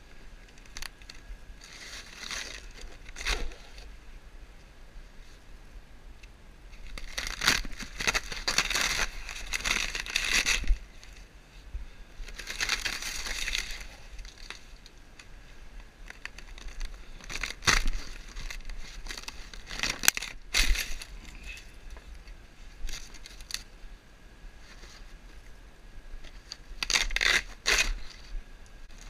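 Rotted wooden roof beams and roof covering of a 2010 Coachmen RV being pulled and broken apart by hand, the wood rotted out by a leaking roof. The sound comes in several noisy bouts with a few sharp cracks between.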